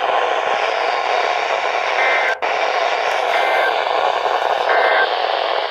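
NOAA Weather Radio receiver hiss, with three short two-tone SAME digital data bursts about a second apart: the end-of-message code sent after an alert.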